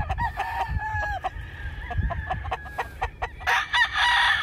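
Gamefowl roosters calling across the yard: repeated short clucks and crows from several birds. A louder, closer crow starts about three and a half seconds in.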